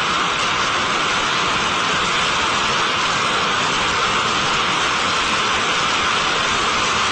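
Five-segment solid rocket motor mid-burn in a static test firing: a loud, steady roar that stays even throughout.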